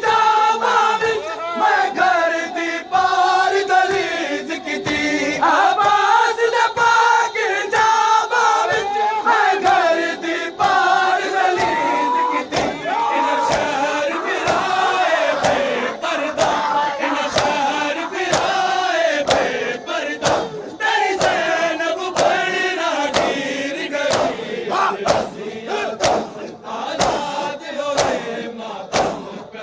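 Many men chanting a noha, a Shia lament, in unison, with hand-on-chest matam slaps keeping a steady rhythm. The slaps grow more prominent in the last third as the singing thins.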